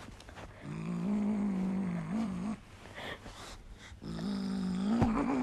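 A cat making long, low yowls, two in a row, each about two seconds with a wavering pitch, a second and a half apart. A short knock sounds during the second yowl.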